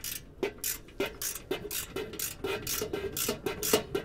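Screwdriver turning a small threadlocked screw into a barbecue rotisserie fitting: a rhythmic run of short, sharp strokes, about three or four a second, quickening slightly partway through.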